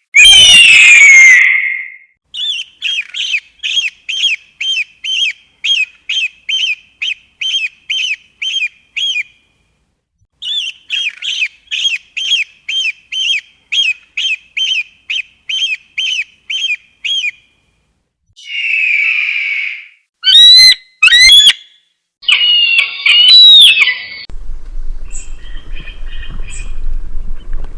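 A series of eagle call recordings: a loud descending scream at the start, then two long runs of short, high piping chirps at about two and a half a second. Several harsher screams and squeals follow near the end.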